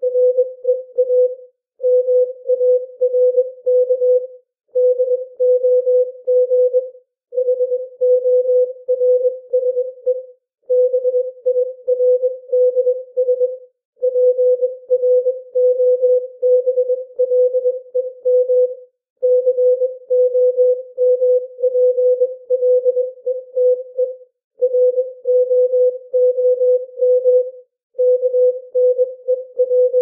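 Morse code practice tone, a single steady pitch keyed into dots and dashes at about 21 words per minute, spelling out common English words with short pauses between them.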